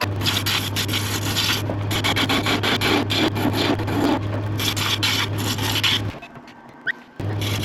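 Sandpaper rubbing on a wooden lamp body spinning on a wood lathe, over the lathe's steady motor hum. The sound breaks off for about a second near the end, then resumes.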